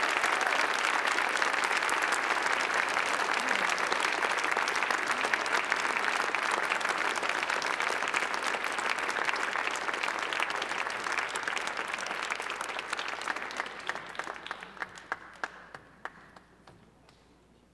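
Large audience applauding steadily, the applause dying away over the last few seconds into a few scattered claps.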